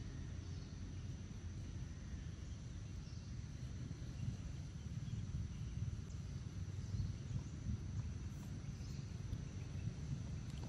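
Forest ambience: a steady low rumble, a thin, steady high-pitched insect drone, and a few faint bird chirps.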